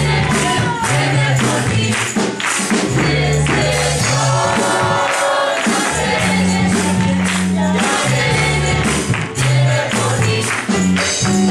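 Church choir singing a gospel worship song in unison over instrumental accompaniment, with a steady bass line and a busy percussive beat.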